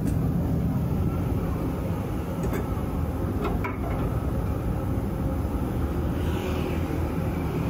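A steady low rumble, with a couple of light clicks of a ladle a little past two and three and a half seconds in as mung bean batter is scooped and poured onto a griddle, and a soft scrape near the end as the batter is spread thin with a metal spreader.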